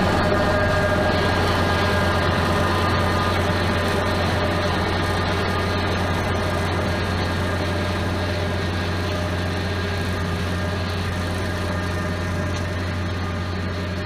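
Kubota L4701 tractor's diesel engine running steadily with a low drone while driving a rotary brush-hog cutter through grass, slowly fading as the tractor pulls away.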